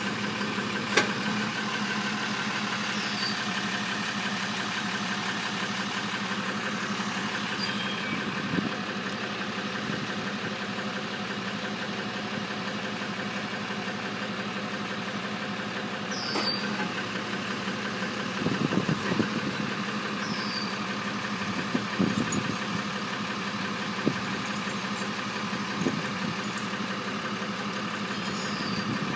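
Large truck's engine idling steadily, with a few separate sharp knocks and clanks now and then.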